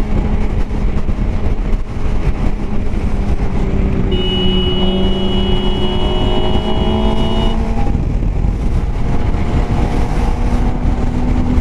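Suzuki sportbike engine running steadily at highway speed, mixed with heavy wind rush on the helmet camera. About four seconds in, a steady high tone lasts around three seconds.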